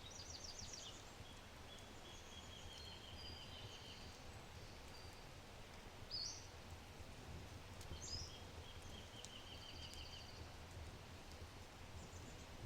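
Forest birds singing: repeated high trills and short chirps, with two louder sharp calls about six and eight seconds in. A faint crackle of an oak wood fire sounds beneath them now and then.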